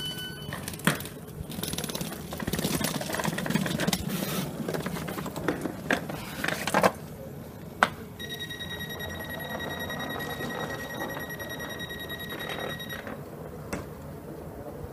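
Knocks, clatter and a few sharp clicks as passengers board a stopped Northern Rail diesel train, followed by the train's door warning alarm: one steady high tone held for about five seconds.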